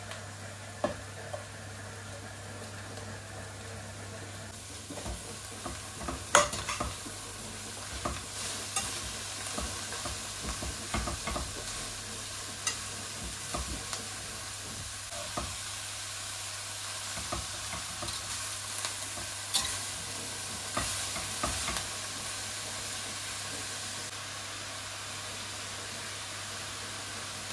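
Food frying in a pan with a steady sizzle, while a utensil stirs it and knocks against the pan in a run of clicks through the middle.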